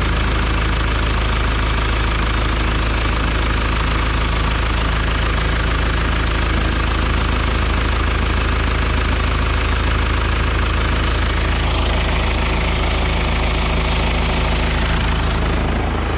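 John Deere stationary irrigation engine running steadily, heard close up.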